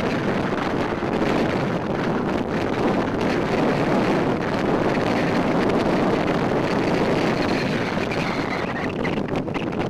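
Steady wind rushing over the microphone, mixed with the running and road noise of a car, heard from inside the moving car.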